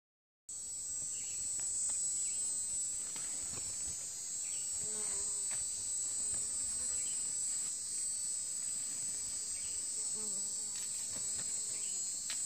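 Steady high-pitched chirring of insects, starting abruptly about half a second in, with a few faint clicks underneath.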